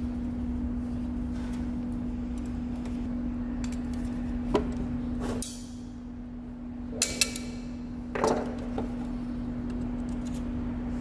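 Steel retaining ring being worked out of the groove in a hydraulic cylinder rod eye with circlip pliers and a screwdriver: scattered metallic clicks and scrapes, the sharpest a quick cluster about seven to eight seconds in, over a steady low hum.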